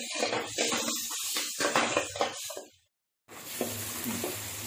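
Chopped tomatoes and onions sizzling in oil in an aluminium kadai, stirred with a metal spoon that scrapes and knocks against the pan. The sound cuts out briefly just before three seconds in, then resumes as a steadier, quieter sizzle with a low hum underneath.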